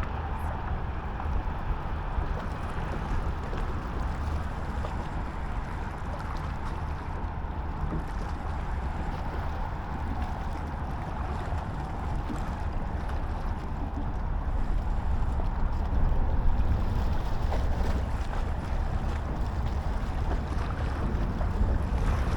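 Steady wind buffeting the microphone, a continuous low rumble that swells a little about two-thirds of the way through.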